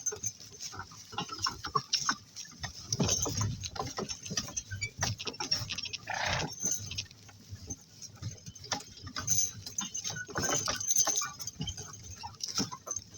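Two donkeys pulling a work cart at a walk: an irregular clatter of hooves and the rattling cart, with a brief louder noise about six seconds in.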